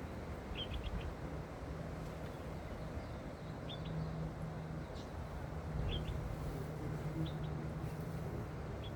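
A small bird chirping: short, high chirps in quick little groups, repeated every second or two over a steady low background rumble.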